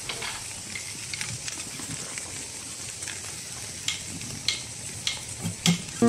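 Footsteps crunching on a gravel path over a steady faint hiss. The steps grow louder in the last two seconds, about one every 0.6 s.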